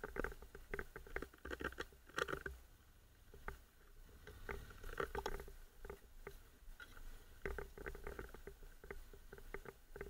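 Honda NC750X motorcycle ridden slowly over a rough dirt trail: an irregular clatter of small knocks and rattles over a low rumble, quieter for a moment about three seconds in.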